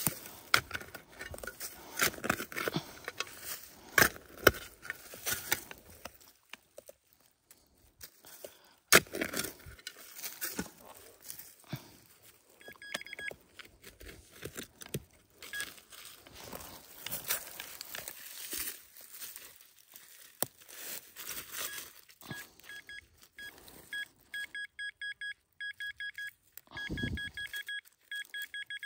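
Rustling, scraping and scattered knocks from something being handled. A short electronic beeping comes in about halfway through, and a repeated, fast-pulsing beep sounds over the last few seconds.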